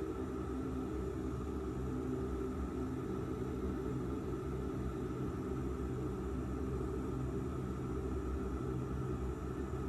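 Steady engine drone and air noise inside an airliner cabin: an even hum with a low rumble and no change in pitch.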